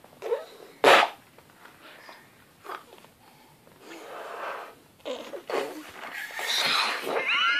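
A child blowing up a balloon in breathy puffs, with two sharp puffs near the start and longer, louder blowing building up toward the end.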